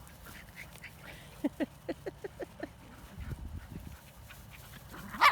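Dogs play-wrestling: about a second and a half in comes a quick run of short whines, then low rumbling grumbles, and a loud short yelp or bark near the end.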